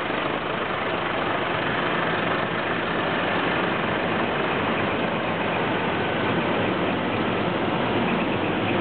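Diesel engines of a slow-moving column of trucks, led by a Scania tractor unit, running steadily and growing a little louder toward the end as they draw closer.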